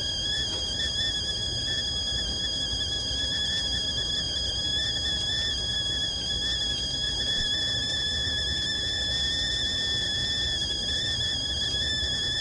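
Whistling stovetop kettle at the boil, giving a steady high whistle that wavers slightly in pitch, with a low rumble underneath.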